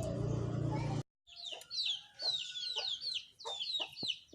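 A steady low hum with faint voices cuts off suddenly about a second in. It gives way to a flock of chickens: a dense chatter of high, quickly falling chirps, typical of chicks, mixed with short lower clucks.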